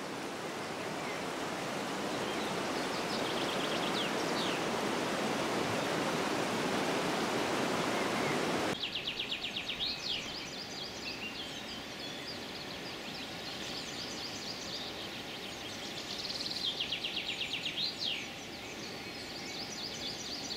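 Jizera river water rushing over shallow stones, an even wash that cuts off about nine seconds in. After that, songbirds sing repeated trills and chirps, one trill every few seconds.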